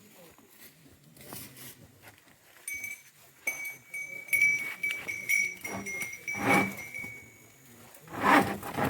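Cattle calling: two short, loud calls, one about two-thirds of the way in and one near the end. A steady high tone runs for several seconds in the middle.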